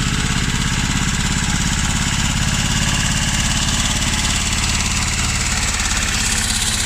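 Tractor diesel engine running steadily at a low, even speed, its pitch shifting slightly near the end.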